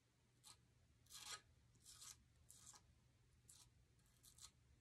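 Faint, short scrapes of a metal palette knife spreading modeling paste across a stencil on a painted wooden board, about six strokes.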